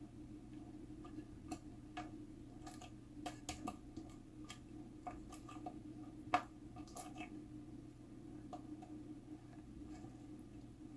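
Scattered light clicks and taps at an irregular pace, with one sharper click about six seconds in, over a steady low hum.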